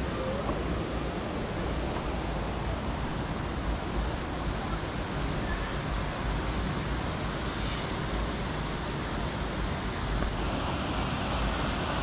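Steady rushing of a shallow stream running over rocks, with wind buffeting the microphone.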